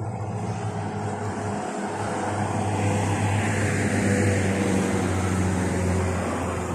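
Steady engine drone with a hum of evenly spaced low tones, swelling to its loudest about halfway through and then easing off.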